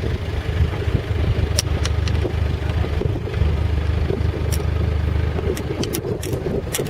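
Car engine running with a steady low hum, with scattered rattling clicks that come more often toward the end.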